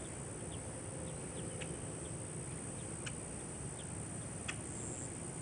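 Steady high-pitched insect drone with a few short, sharp bird chirps over a wetland background hum.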